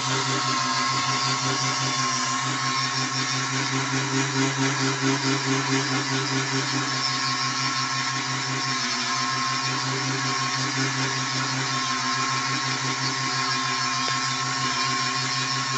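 Mini wood lathe's small 150-watt motor running steadily with a high whine over a low hum, while a hand chisel cuts the spinning wooden workpiece with a scraping hiss. The sound wavers briefly about four to six seconds in.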